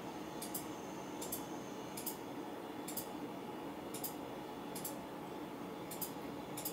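Faint sharp clicks, often doubled, about once a second at an uneven pace, over a steady low room hum.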